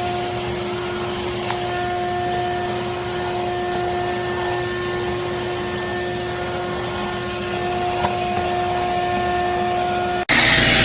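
Craftsman 16-gallon 6.5 peak HP wet/dry shop vacuum running steadily: a fixed motor whine over a rush of air. Just before the end the sound changes abruptly to a louder, rougher rush.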